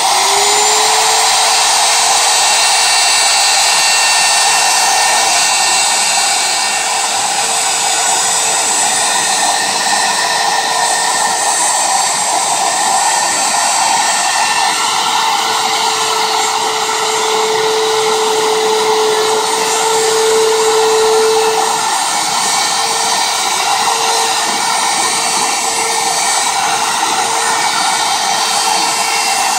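Handheld electric router switched on, spinning up in the first second, then running steadily with a high motor whine while it is guided through a cut in a plywood board.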